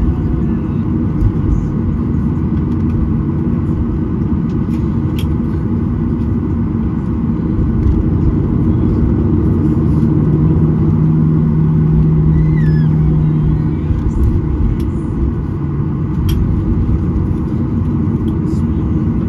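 Boeing 737-800 cabin noise while taxiing: a steady low rumble from the engines at idle and the wheels rolling on the taxiway, with a low hum that swells for a few seconds midway and scattered small rattles.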